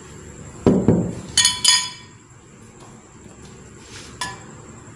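Glass blender jar being handled: a knock, then two sharp ringing clinks of glass about a second and a half in, and another clink a little after four seconds.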